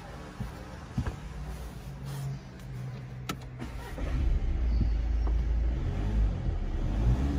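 A VW Tiguan's engine heard from inside the cabin: a steady low idle with a couple of clicks, then from about four seconds in a louder low rumble as the engine takes load.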